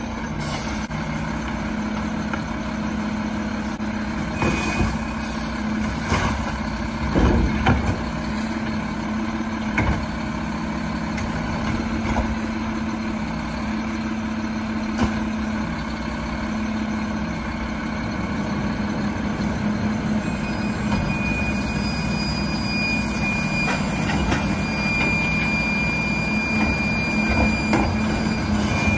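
Mack LEU garbage truck with a McNeilus Autoreach side-loading arm, its diesel engine running steadily. A cluster of knocks and bangs comes about four to eight seconds in, and a steady high whine starts about twenty seconds in.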